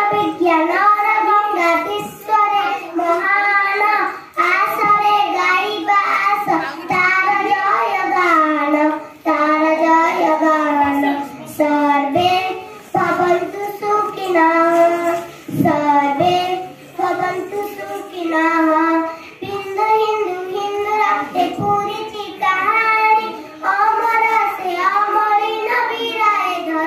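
A young girl singing a patriotic song solo, in long held notes with a wavering pitch, pausing briefly for breath between lines.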